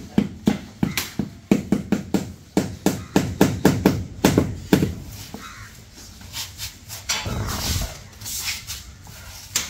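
Rubber mallet tapping a vitrified floor tile down into its wet cement-slurry mortar bed to seat it level: a quick run of knocks, about three a second, for the first five seconds or so. A brief rough scraping noise comes about seven seconds in.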